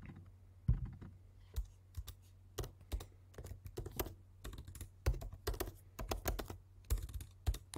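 Typing on a computer keyboard: a run of irregular keystroke clicks with short pauses between bursts.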